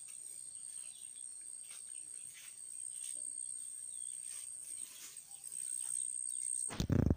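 An insect trills steadily on a single high continuous tone amid faint rustling. Just before the end there is a short, loud burst of noise.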